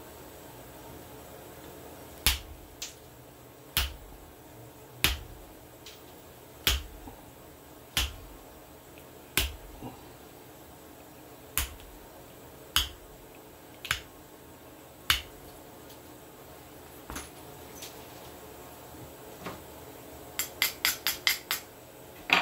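Pressure flaking a thin dark stone blade with a pointed hand tool: a sharp click each time a flake pops off the edge, roughly one every second or so, then a quick run of five or six clicks near the end.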